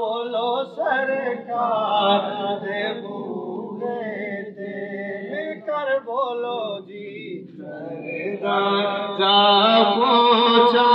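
A man's solo voice chanting a devotional Islamic poem (naat or manqabat) into a microphone, in long held, ornamented, bending notes. It drops softer in the middle and comes back loud about nine seconds in.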